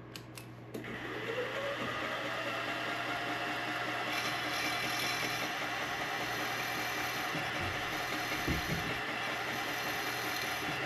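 Milling machine spindle starting after a couple of switch clicks, rising in pitch as it comes up to speed about a second in, then running steadily with a whine while the end mill is plunged down through a carbon fiber handguard.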